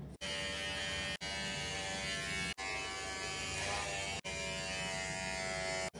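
Electric hair trimmer buzzing steadily as it cuts hair over a comb, broken four times by brief drop-outs.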